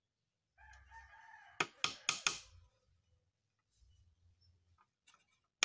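A rooster crows for about a second, then a hammer strikes four quick blows, driving a small nail into the thin wooden frame of a cage.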